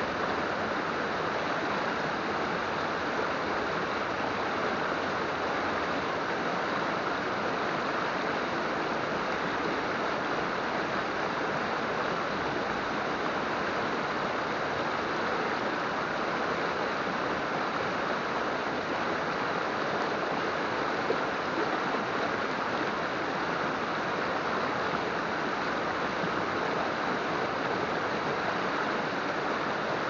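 Mountain river flowing, a steady rush of water without a break.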